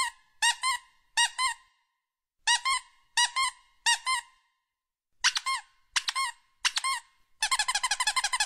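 Squeaky-toy squeaks, each a short rising-and-falling squeal, coming in three groups of three and then a fast run of several squeaks a second near the end.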